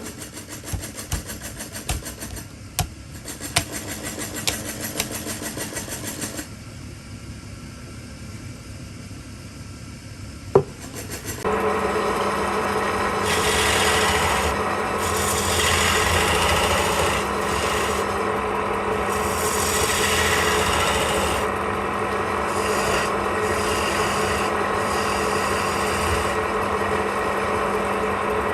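Wood being cut and scraped on a lathe, a rasping, rubbing sound with several sharp ticks in the first few seconds and a single click about ten seconds in. From about a third of the way through it gets louder and steadier over a low hum, the cutting noise swelling and fading in waves.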